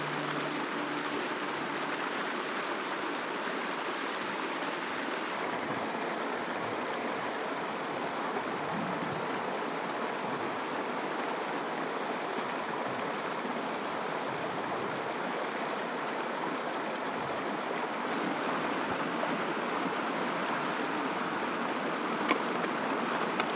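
Shallow mountain stream running over rocks: a steady rush of water whose tone shifts slightly a couple of times.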